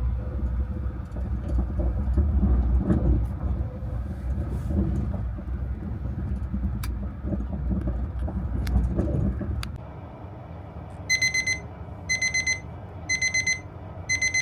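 Low rumble of the Caledonian Sleeper train running, with scattered light clicks and knocks, which cuts out about ten seconds in. Then an electronic alarm beeps in short rapid bursts, four bursts about a second apart.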